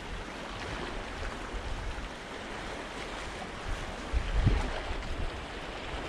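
Seawater washing and splashing among the concrete tetrapods of a breakwater, a steady wash, with a brief low gust of wind on the microphone about four seconds in.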